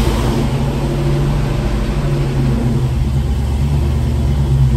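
LS-based V8 engine in an old Chevy pickup running at idle just after catching, a steady low hum with a slight rise near the end.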